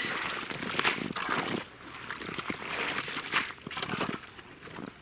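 Shovel scooping slush and broken ice out of a freshly chopped hole in river ice, scraping and sloshing in several strokes about a second apart.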